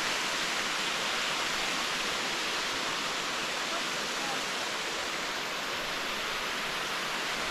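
Waterfall: steady rushing of falling water, an even hiss that holds constant without a break.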